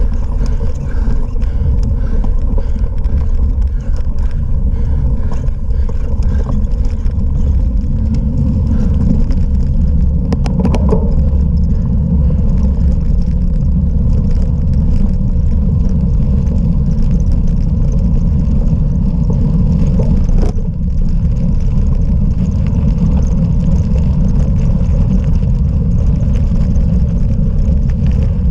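Steady loud rumble of wind and rolling noise on a cyclocross bicycle's onboard camera, with a brief knock about a third of the way in and another past two thirds.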